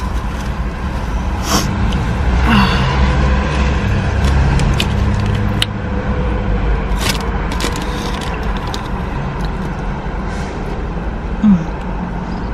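Close-up chewing and lip-smacking on crispy fried chicken wings, with scattered wet mouth clicks, over a steady low rumble of street traffic.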